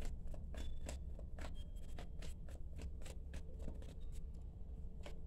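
Tarot cards being shuffled by hand: a run of quick, irregular card clicks, several a second, over a low steady hum.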